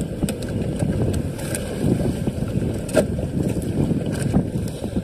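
Wind buffeting the microphone on a small boat at sea, a rough low rumble with no steady engine tone, broken by a few short knocks from handling.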